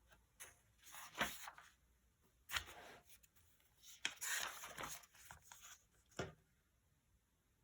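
Paper rustling and being handled in several short bursts, with quiet between them.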